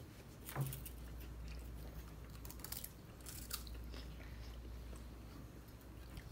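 Children chewing a crunchy snack: a few scattered bites and crunches, the sharpest about half a second in and a cluster around three seconds, over a low steady hum.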